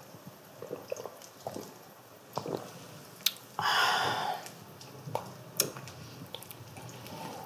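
Two people sipping makgeolli from brass bowls: quiet sips and small scattered clicks, with one short breathy exhale about three and a half seconds in.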